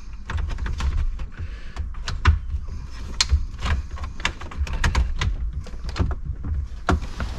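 Irregular clicks, taps and knocks, several a second, from hands working wiring connectors and plastic parts behind a car's dashboard.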